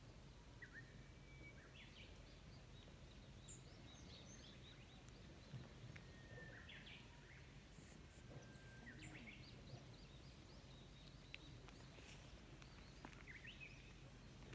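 Near silence outdoors: faint, scattered bird chirps and short whistled calls over a low, steady background rumble.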